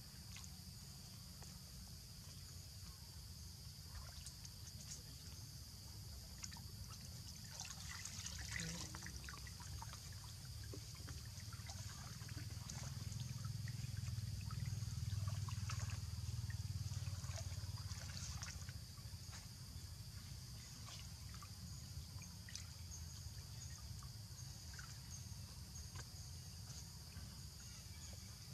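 Faint trickling and small splashes of water in a duckweed-covered concrete pond, over a steady high-pitched hum. The splashes and clicks come thickest about eight seconds in and again between about twelve and nineteen seconds in.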